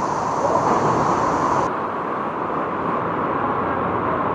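Steady roar of rushing water from a waterfall and river in a canyon. The high hiss above it cuts off abruptly a little under two seconds in.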